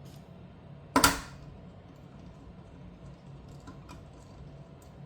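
A single sharp clack with a brief ring about a second in, as a small piece of hardware is put down hard during the graphics card's disassembly, followed by a few faint ticks of handling near the end.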